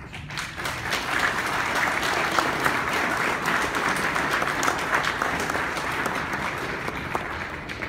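Audience applauding, swelling up within the first second and tapering off near the end.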